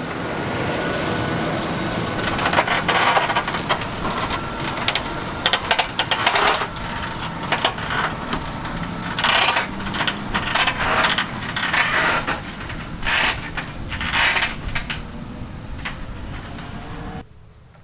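Harvest machinery running with a steady hum under loud, irregular rattling and crunching. The sound cuts off abruptly near the end.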